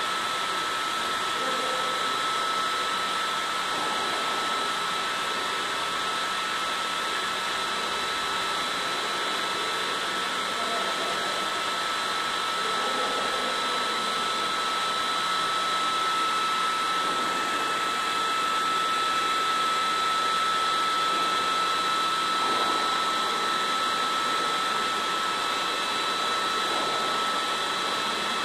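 A fan or blower motor running steadily: a continuous whirring hiss with a constant high whine.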